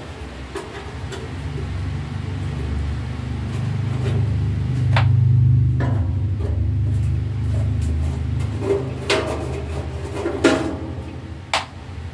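A screwdriver working the screws of a welding machine's sheet-metal casing, giving a few sharp metallic clicks and taps, mostly in the second half. Underneath is a low rumble that swells toward the middle and then eases off.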